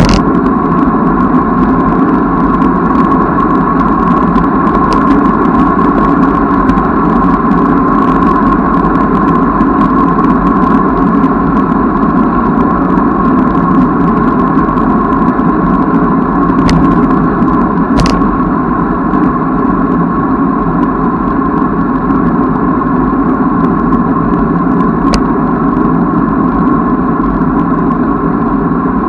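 Steady rushing noise of a moving bicycle ride, wind and tyres, picked up by the camera's own microphone. A few sharp clicks stand out, two close together midway through and one later.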